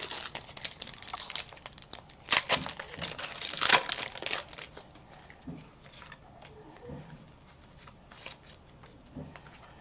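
Foil Pokémon booster pack wrapper crinkling and being torn open, loudest in two bursts a couple of seconds in. After that comes the fainter rustle and tick of the pack's cards being slid out and handled.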